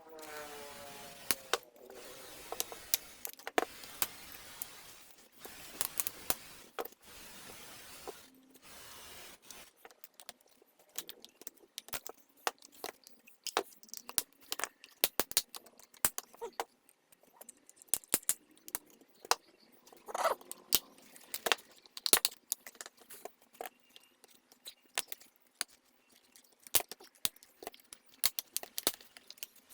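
Irregular clicks, taps and light rattles of plastic vacuum-nozzle parts and small tools being handled during disassembly and cleaning. A light steady hiss lies under the first third.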